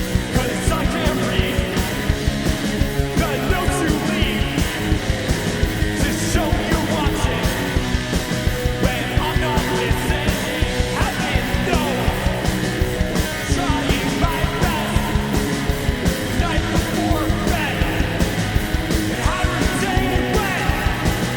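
A two-piece punk rock band playing a song live: electric guitar over a steady drum beat.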